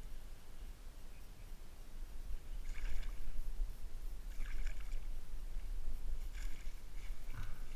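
Water splashing as a hooked ide thrashes at the surface and is scooped into a landing net: four short splashes over a steady low rumble.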